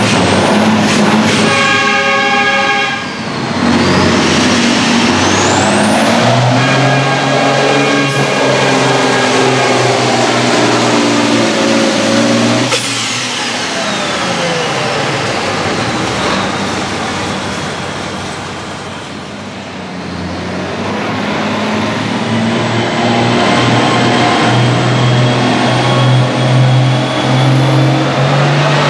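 Turbocharged diesel farm tractor engines at full load pulling a sled, first a John Deere and then an International 1066. The turbocharger whistle climbs to a high pitch and holds. About 13 seconds in, the throttle is cut and the whistle falls away. In the second half, another tractor's engine builds again with its turbo whistle rising toward the end.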